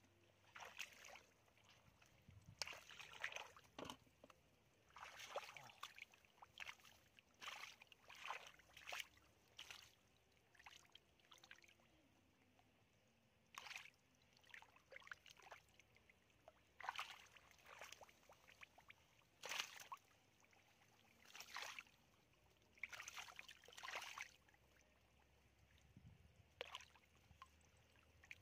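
Bare hands scooping and slapping through wet mud and shallow muddy water: short, irregular splashes and squelches every second or two.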